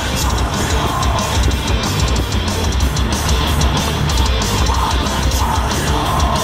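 Loud heavy rock music with distorted guitar and drums, over wind rushing in through a car's open windows and sunroof at road speed.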